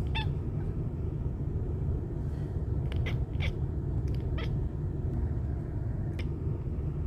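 A cat making short chirps at birds, about six brief calls spaced unevenly, over a steady low rumble.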